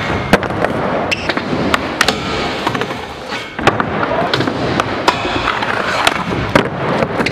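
Skateboard rolling on plywood and sliding along a long metal flat bar, with repeated sharp clacks of the board knocking on the bar and landing.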